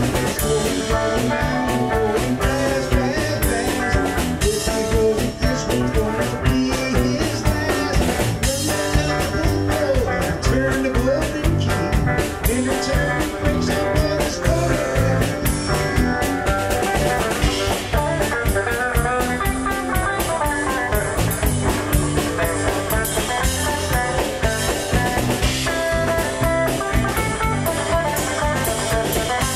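A small rock band jamming on electric guitars and a drum kit: a steady, loud blues-rock groove with continuous drumming.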